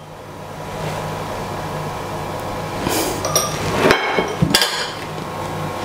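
A metal spoon clinking against a small glass bowl several times, about three to five seconds in, as ground black pepper is scooped out. A steady hum runs underneath.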